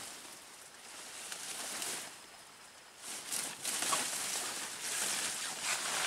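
Leafy branches rustling as they are pushed aside and pulled by hand, in swells: one about a second in, then a longer, louder stretch from about three seconds on.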